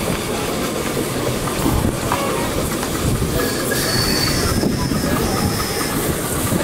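Ride-on miniature live-steam train rolling round a curve of track, its wheels running steadily over the rails. About halfway in a thin, high squeal sets in and holds for a couple of seconds.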